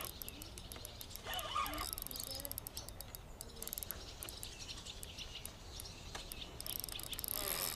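Spinning fishing reel ticking in quick, irregular clusters as it is cranked against a large hooked catfish.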